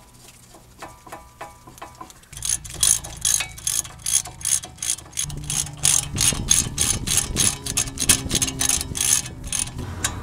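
Socket ratchet clicking as it runs a brake caliper bracket bolt in, in quick, even strokes. The clicks are faint at first and grow loud about two seconds in.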